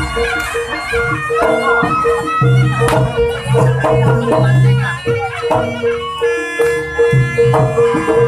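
Javanese traditional music accompanying a barongan dance: a reedy wind instrument plays a wavering melody over a short note struck again and again in a steady pulse, low booming notes and sharp drum strokes.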